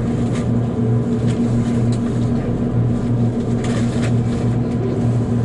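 Steady low electrical hum inside the cabin of a JR Kyushu 787-series train, 36ぷらす3, standing with its doors closed just before it departs. There is no motor whine of a pull-away yet.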